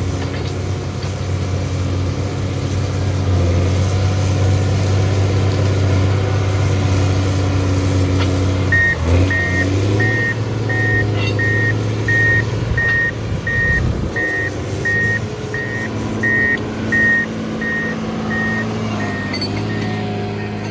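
John Deere motor grader's diesel engine running steadily. About nine seconds in, the engine note shifts and the reversing alarm starts a regular high beeping, under two beeps a second, as the grader backs up.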